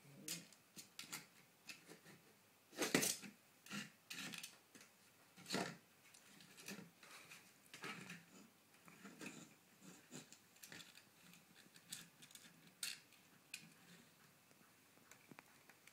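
Shetland sheepdog puppy chewing and pawing at a large rawhide bone, knocking and scraping it on a wooden plank floor: a run of irregular dry knocks, clicks and gnawing, loudest about three seconds in and again near six seconds, sparser towards the end.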